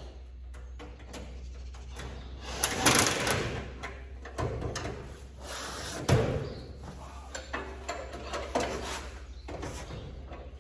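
Irregular knocks, clanks and scraping from hands-on repair work on farm machinery, loudest about three seconds in, with a sharp knock about six seconds in, over a steady low hum.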